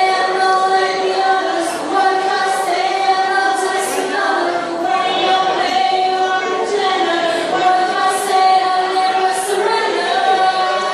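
A group of young women singing together, several voices holding long notes with short breaks between phrases.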